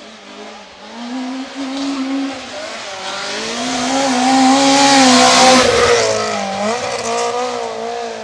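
Rally car coming in at speed on a stage, its engine revving up and dropping back through several gear changes, loudest as it passes about five seconds in, then fading away.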